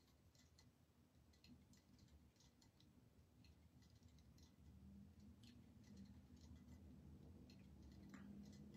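Near silence: room tone with a faint low hum and a few faint scattered ticks.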